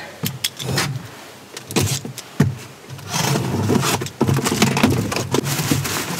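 A cardboard shipping box being opened by hand: scattered knocks and clicks of the box being handled, then steady scraping and rustling of cardboard and packing tape from about three seconds in as the flaps are pulled apart.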